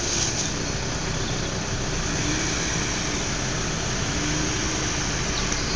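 Off-road 4x4's engine running steadily as the vehicle drives slowly through a muddy, water-filled forest track.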